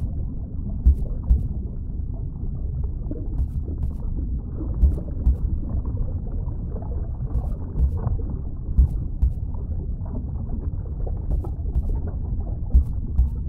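A low rumbling ambient drone, almost all bass with nothing high in it, with soft low booms every few seconds.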